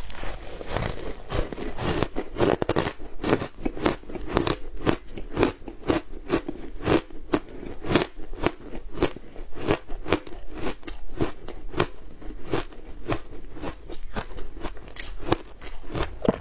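Frozen shaved ice dusted with matcha and milk powder being bitten and chewed, a steady run of sharp crunches at about three a second.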